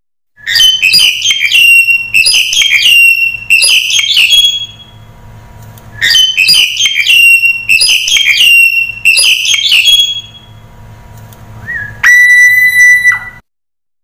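Black-collared starling (jalak Hongkong) singing: two bursts of loud, rapid, chattering whistled notes, each about four seconds long, then a short rising note and one long steady whistle near the end.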